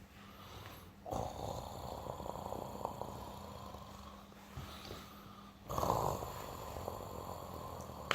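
A man snoring: two long snores, the first starting about a second in and the second about five and a half seconds in.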